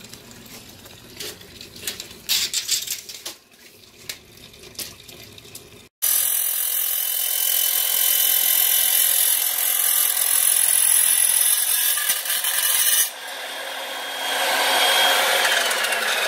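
Evolution sliding miter saw running and cutting a screen door's U-channel to length. A loud steady run starts suddenly about six seconds in, and the blade winds down near the end with a falling whine. Before that come a few seconds of clicks and rubbing as the channel is handled.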